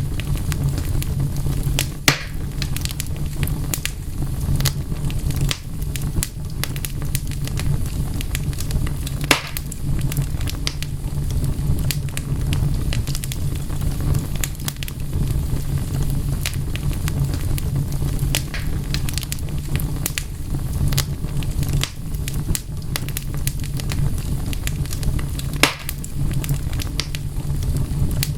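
Wood fire crackling and popping. A steady low rumble runs under many small sharp crackles, with a few louder pops spread through.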